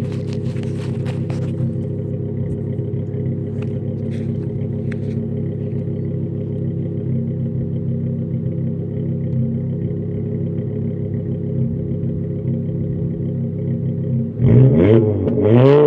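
Volkswagen Jetta's 2.5-litre five-cylinder engine with an aftermarket 2.5-inch cat-back exhaust idling steadily, then blipped up in revs twice in quick succession near the end.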